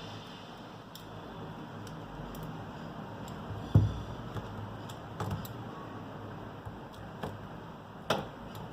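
A few small clicks and taps of tools and parts being handled during a smartphone teardown, with a heavier low knock about four seconds in and a sharper click near the end, over a steady background hum.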